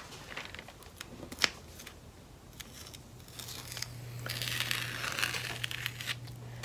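Washi tape being peeled off the edge of a sheet of photo paper, with a crinkly tearing rasp in the middle and a few small clicks before it. A low steady hum starts partway through.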